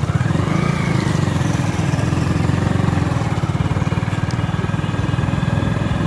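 Motorcycle engine running under way, a steady rapid low pulsing, with a brief rise in pitch about half a second in.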